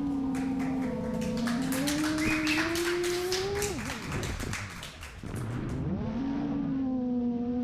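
A 7-inch FPV quadcopter's motors whine at a steady pitch, with a run of crackling ticks. About four seconds in the throttle drops: the whine sags and fades. About a second later it climbs back up and holds steady.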